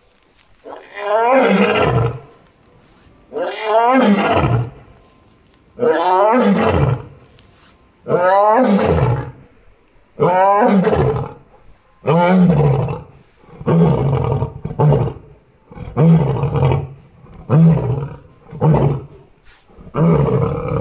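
Male lion roaring in a bout: about six long, loud roars roughly every two seconds, then shorter roars coming faster toward the end.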